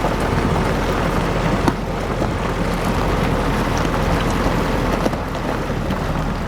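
Vehicle engine running steadily, with wind rushing over the microphone.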